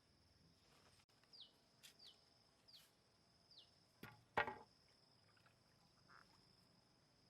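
Faint outdoor ambience: a steady high-pitched insect-like drone, four short chirps that each fall in pitch, and a sharp knock about four and a half seconds in, the loudest sound.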